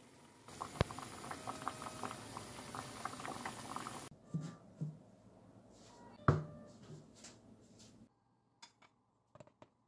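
Pot of ramen broth with soft tofu bubbling at a boil, with a spoon clinking against the pot. Then lighter clatter of chopsticks stirring the noodles, with a sharp knock on the pot about six seconds in.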